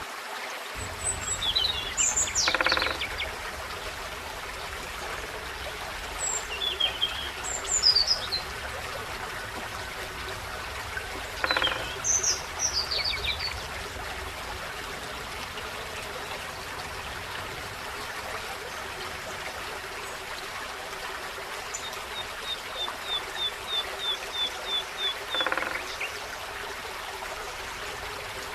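Forest stream running steadily, with songbirds calling over it: chirps and short whistled phrases in several bursts, and later a quick run of about ten even notes.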